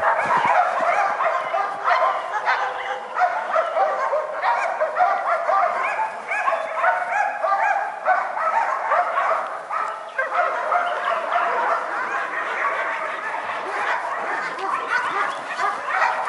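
Many dogs barking and yapping at once, a continuous overlapping chorus with no break.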